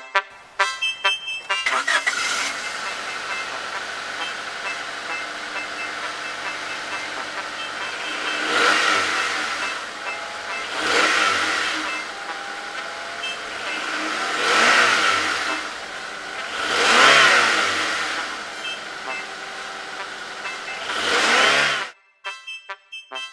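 Car engine sound effect: an engine running steadily, revving up and back down five times, then cutting off suddenly near the end.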